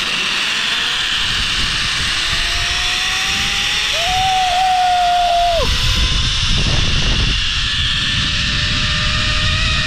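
Zipline trolley running along the steel cable with wind rushing over the helmet-mounted action camera microphone; faint whines rise slowly as the ride picks up speed. A brief steady tone sounds about four seconds in, and the low wind buffeting grows heavier from about the middle on.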